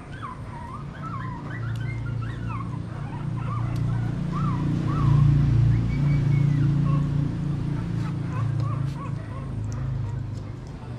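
Young Shih Tzu puppies squeaking and whimpering in short rising-and-falling cries, thick in the first few seconds and scattered after, under a louder low hum that swells up about halfway through.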